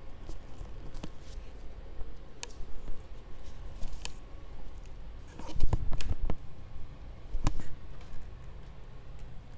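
Scattered light clicks and taps of things being handled and moved about, with a few heavier low thumps about halfway through and again near the end.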